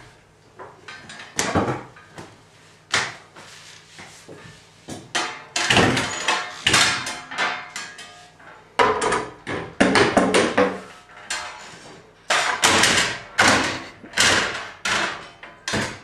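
A toilet door being shut, then a long run of irregular bangs and thumps from inside the small room, coming more often in the second half.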